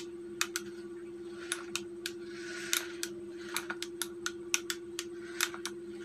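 Rocker switches on a homemade wired remote clicking sharply and irregularly as they are pressed to drive the toy car forward and back, over a steady low hum. The car's small electric motors give a brief whirr about two and a half seconds in.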